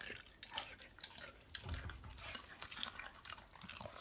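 Dog licking raw beef juices off a bare hand: an irregular run of wet licks and lip smacks.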